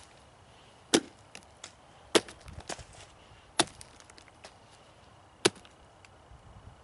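A homemade celt-style tomahawk, its steel blade set into a wooden handle, chopping into a pumpkin on a log. There are four sharp chops one to two seconds apart, with fainter knocks between them.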